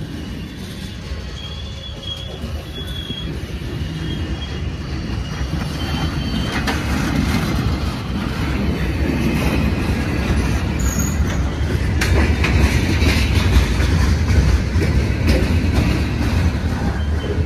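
A diesel train approaching, its rumble growing steadily louder and peaking about two-thirds of the way in. There are brief high squeals of wheels on rail in the first few seconds, and a clatter of wheels over the rails from about halfway.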